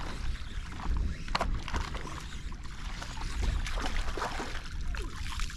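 Wind rumbling on the microphone over water lapping at a kayak hull, with many short clicks and slaps as a hooked speckled trout splashes at the surface and is reeled in.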